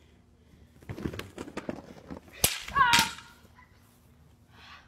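A quick run of knocks and scuffs, then a single sharp crack about halfway through, the loudest sound, followed at once by a short yelp as a person attempting a stunt with a long pole comes to grief.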